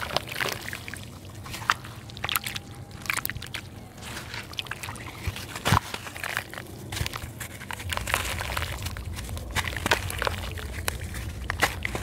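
A red dirt block crumbled by hand over a basin of muddy water: gritty crunching and crackling as it breaks, with crumbs and clumps dropping into the water and sloshing.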